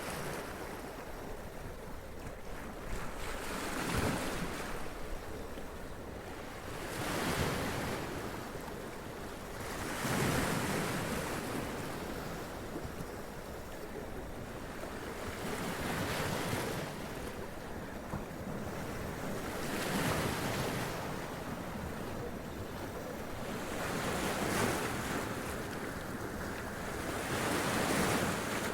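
Sea waves breaking and washing up over rocks, one surge every three to four seconds over a steady rush of surf.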